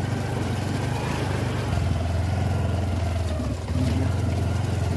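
Honda Activa scooter's single-cylinder engine running steadily while riding, getting a little louder about three-quarters of the way through.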